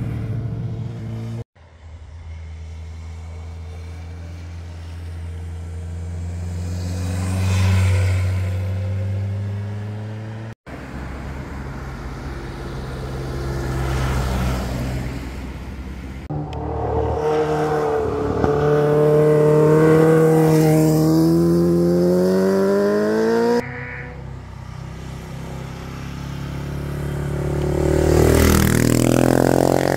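Road vehicles passing one after another through a hairpin bend: motorcycle engines accelerating through the turn and a camper van going by, with a few abrupt cuts between passes. One engine rises steadily in pitch for several seconds past the middle, and near the end a motorcycle revs up and its pitch sweeps up and back down as it passes.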